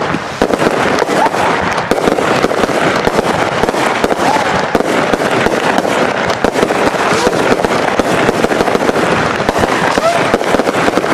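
Several AFW Golden Willow consumer firework cakes firing together: a dense, continuous crackle of many quick pops and bangs with no pause.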